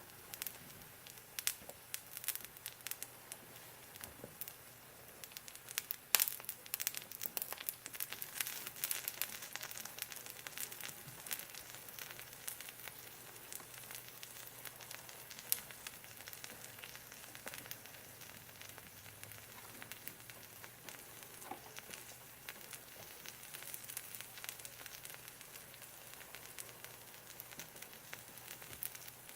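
Cheese-filled arepa frying in a pan with no butter or oil, its melting cheese sizzling faintly with irregular crackles and small pops.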